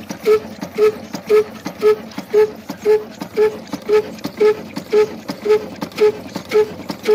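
Old Fazil Industries 'black' slow-speed diesel engine running steadily: a slow, even beat about two times a second, each beat with a short pitched tone.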